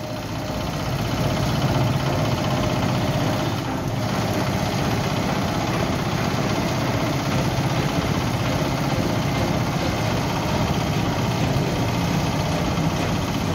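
Engine of a two-ton ride-on baby roller (small tandem asphalt roller) running steadily as it drives over the road surface compacting asphalt. The sound rises over the first second or two, then holds even.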